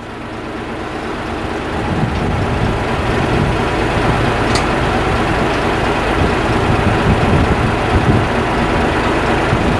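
Truck engine of a Hiab crane truck running steadily to power the crane's hydraulics, building up over the first two seconds and then holding steady.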